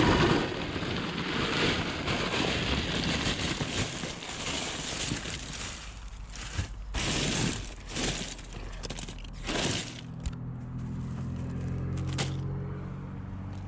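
Car sounds: a loud, even rush with a few brief surges, then from about ten seconds in the steady low hum of the car's engine running.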